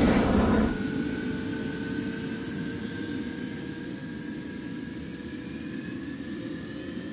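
Sound effect for an animated scoreboard graphic: a noisy hit that dies away within the first second, then a slow whooshing riser whose several tones glide gradually upward.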